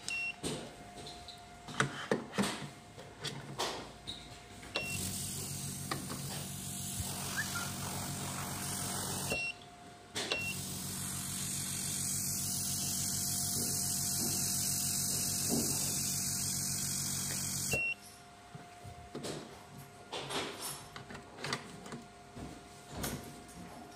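Hydrafacial machine's pump running with a steady hum and an airy hiss, started and stopped by short beeps from its touchscreen. It comes on about five seconds in, cuts out for under a second around the middle, then runs again until it stops about eighteen seconds in. Light clicks and taps come before and after.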